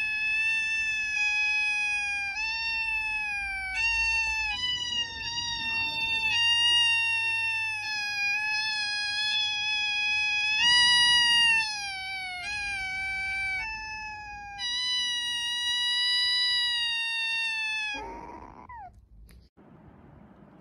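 A kitten meowing loudly in long, high-pitched cries, each held at a near-steady pitch for one to three seconds, one after another with short breaks. The cries stop near the end.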